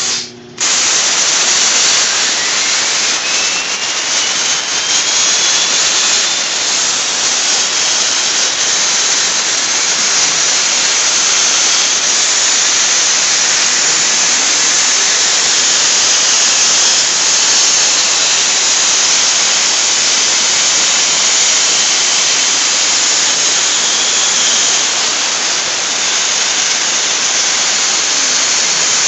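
CNC plasma cutter's torch cutting: a loud, steady hiss of the plasma arc and air. It cuts out for a moment just after the start, then runs on without a break.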